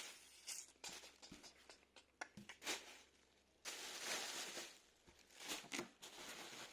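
Cardboard box and packaging being handled and closed: a string of small clicks, rustles and scrapes, with a longer stretch of rubbing about four seconds in.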